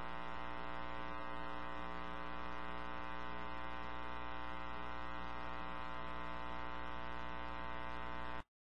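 Steady electrical mains hum with a buzzy, many-toned edge over light hiss, cutting off suddenly near the end.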